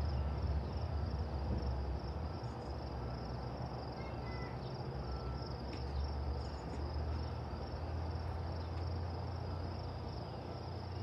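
Steady outdoor insect chorus, a continuous high trill typical of crickets, over a low steady rumble.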